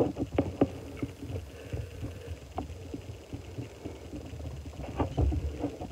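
Faint scattered clicks and taps over a low rumble: small handling sounds as face mask is scooped from a jar and spread on the skin with the fingers.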